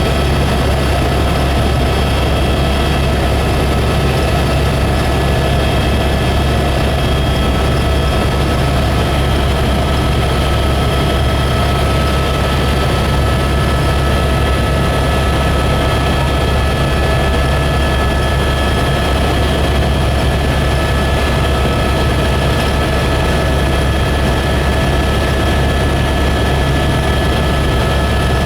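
Helicopter turbine engine and rotor heard from aboard in steady flight: a loud, constant low drone with several steady whining tones over it.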